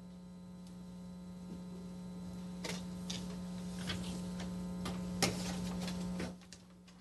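Steady electrical mains hum in the audio feed, with many even overtones, slowly growing louder and cutting off suddenly about six seconds in. A few faint clicks and rustles sound over it.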